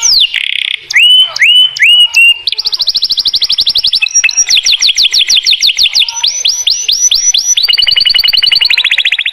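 A domestic canary singing a continuous song of tours. A few upward swooping notes give way to a string of rapid high trills, each a fast run of identical notes held for a second or two before the song switches to the next.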